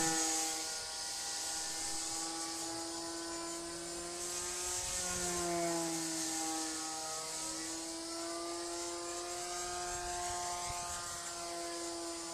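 Super Sportster RC model airplane's engine and propeller buzzing steadily in flight overhead. The pitch wavers a little around the middle as the throttle and flight path change.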